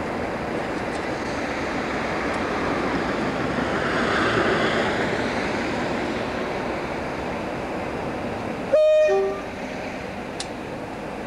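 Over a steady background noise, a diesel locomotive sounds a short two-tone horn blast about nine seconds in: a high note, then a lower one.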